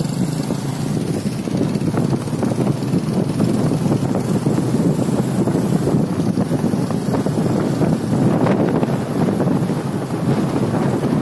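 Wind buffeting the microphone of a moving motorcycle, a steady rushing that fluctuates rapidly, with the bike's engine running underneath.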